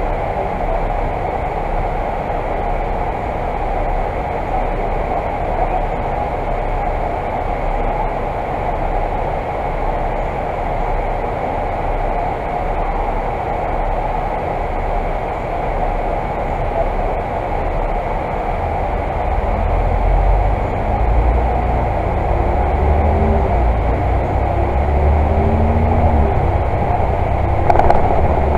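Volvo Super Olympian double-decker bus heard from inside its upper deck: a steady engine and cabin rumble while it stands at a red light. About twenty seconds in, the bus pulls away and accelerates, with the rumble growing and several rising whines as it picks up speed through the gears.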